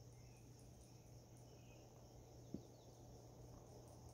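Near silence: faint outdoor ambience with a steady high insect hiss, a few faint bird chirps, and one soft click about two and a half seconds in.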